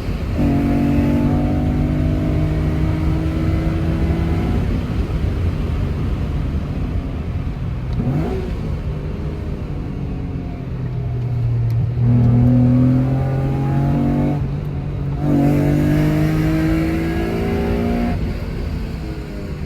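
Mitsubishi FTO's 2.0-litre 6A12 MIVEC V6 engine and exhaust accelerating through the gears under load. The pitch climbs steadily in each gear and drops back at each gear change: one change right at the start, a quick rev sweep about eight seconds in, and a short break for another change around fifteen seconds.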